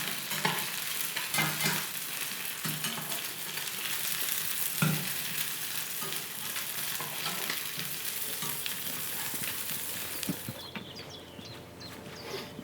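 Eggs frying in a hot pan, a steady sizzle with a few small clicks of a utensil against the pan. The sizzle cuts off abruptly near the end.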